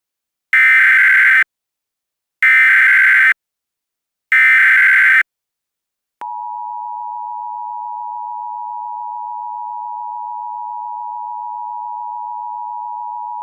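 Emergency Alert System alert tones: three short, loud bursts of SAME header data tones about two seconds apart, then the steady two-tone EAS attention signal, which starts about six seconds in. Together they open an emergency alert broadcast.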